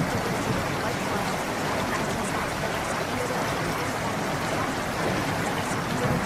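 Calm water-cave ambience: steady running water with a few faint, scattered drips.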